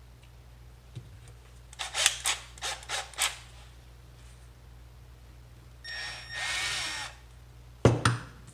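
Cordless drill having its bit changed: a quick run of clicks and rattles at the keyless chuck, then a short whir of the motor lasting about a second, then two loud knocks near the end.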